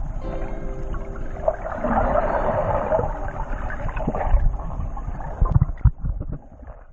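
Boat under way: a steady motor hum under rushing water and wind noise, with a few knocks, fading out near the end.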